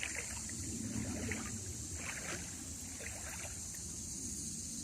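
Water sloshing in a shallow stream, short splashes about once a second, over a steady high hiss.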